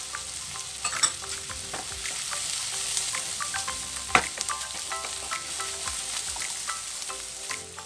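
Sliced onions, garlic, ginger and green chillies sizzling in mustard oil in a coated wok while a spatula stirs them. The spatula knocks and scrapes against the pan, with sharp clicks about a second in and again about four seconds in.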